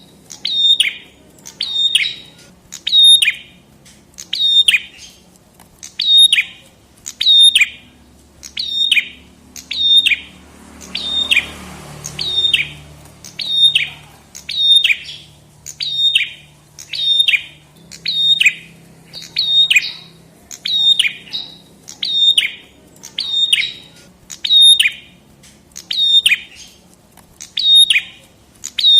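Prenjak kepala merah (red-headed prenjak) calling over and over, a short, sharp, high chirp repeated steadily about once a second, each note sweeping quickly downward.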